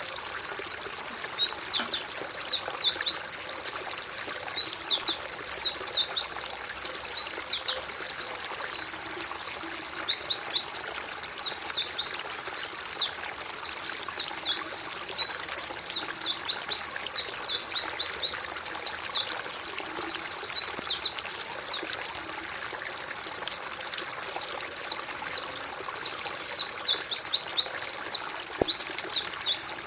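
Many white-eyes chirping continuously in quick, thin, high notes that sweep downward and overlap, over a steady trickle of running water.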